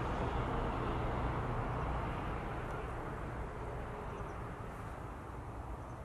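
Low rumbling background noise, loudest at first and fading gradually from about two seconds in.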